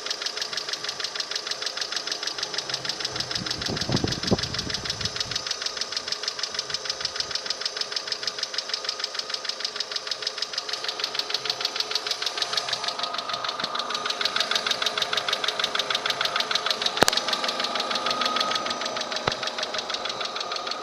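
Car engine idling with a rapid, even tapping from the valvetrain: the knock of the hydraulic lash adjusters (hydraulic lifters). A sharp click stands out late on.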